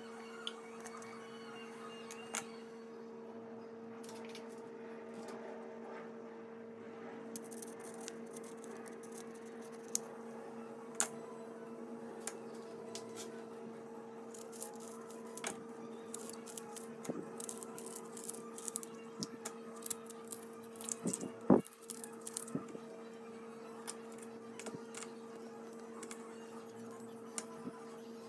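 A steady electrical hum with scattered light clicks and knocks, which come thicker in the second half; the loudest is a sharp knock about three quarters of the way through.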